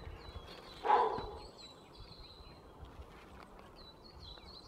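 Small songbirds chirping in the forest, with a brief muffled sound about a second in.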